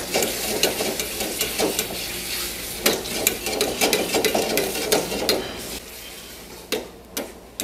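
Metal ladle scraping and clanking against a steel karahi as curry is stirred and tossed over the flame, the food sizzling in hot oil. The clatter thins out after about five seconds, leaving a couple of single knocks.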